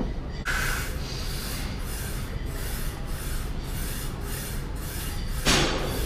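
Steady gym room noise with a low rumble as a lifter works a loaded barbell in a squat rack. A short, loud rush of noise comes about five and a half seconds in.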